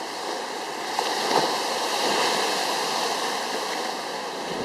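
Steady rushing of water, a little louder from about a second in.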